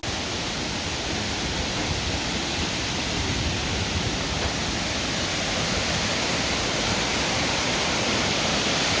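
Steady rush of falling water from a small waterfall, growing slightly louder toward the end.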